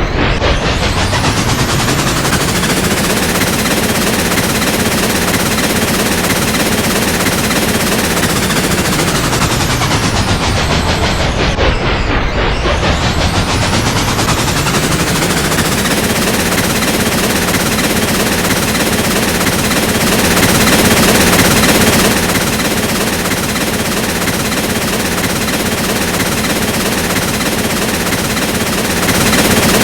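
Train running with a fast, continuous rattling clatter; the tone sweeps down and back up about twelve seconds in.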